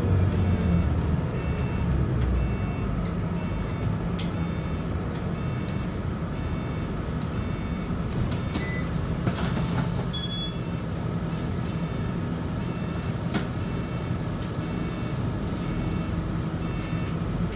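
Scania K94UB bus's rear-mounted 9-litre six-cylinder DC9 diesel running as the bus drives along, heard from inside the cabin, easing off in the first second or so. A regular electronic beep repeats about three times every two seconds over the engine.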